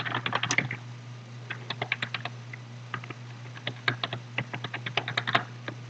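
Typing on a computer keyboard: quick keystroke clicks in several short runs with brief pauses between them, over a steady low hum.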